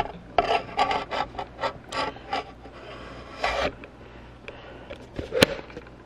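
Handling noise as a Padcaster Parrot Pro teleprompter rig with an iPhone is fitted together: about ten short scrapes and rubs in the first three and a half seconds, then a few light clicks and one sharp click near the end.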